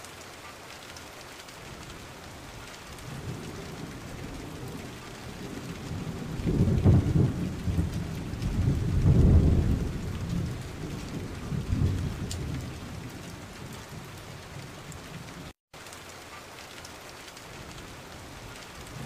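Steady rain with thunder rumbling several times, the loudest rolls coming just before the halfway point and a fainter one after it. The sound cuts out for an instant near the end.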